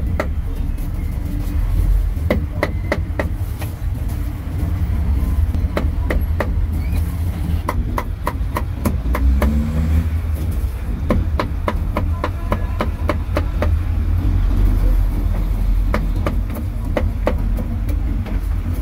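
Meat cleaver chopping crispy roast pork belly and duck on a round chopping block: quick, irregular runs of sharp knocks. A steady low rumble of road traffic runs underneath.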